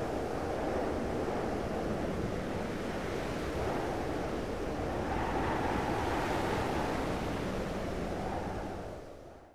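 Steady rushing wind sound effect of blowing sand, fading out over the last second or so.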